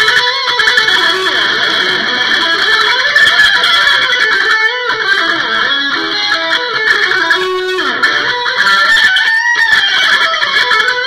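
Amplified single-cutaway electric guitar played as a continuous lead line, with notes gliding up and down in pitch.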